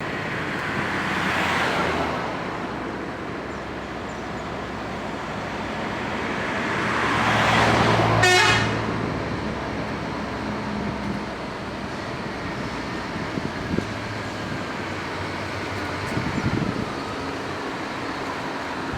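Roadside traffic with heavy vehicles passing. The loudest pass comes about eight seconds in: a big diesel engine swells and fades as it goes by. Horn toots sound among the traffic.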